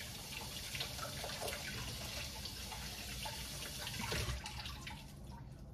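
Water running steadily, as from a tap, cut off about five seconds in.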